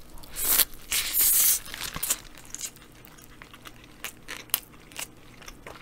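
A person biting into a large burger held in a crinkling paper wrapper: two noisy bursts of wrapper rustle and bite about a second in, then soft chewing with small mouth clicks.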